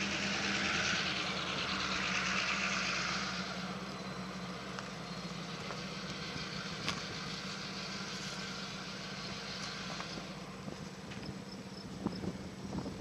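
Engine idling with a steady low hum, and a hiss over it that fades out about three and a half seconds in. A few faint clicks come near the end.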